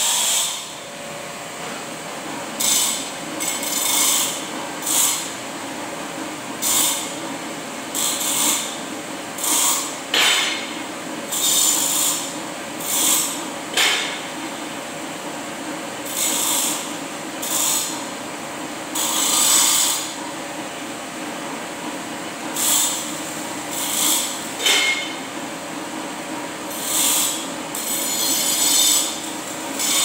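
Short scraping strokes of a tool on steel, roughly one a second and each under a second long, over a steady motor hum.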